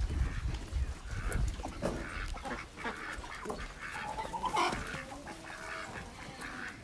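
Farmyard chickens and ducks calling: a string of short clucks and quacks, with one louder call about two-thirds of the way through.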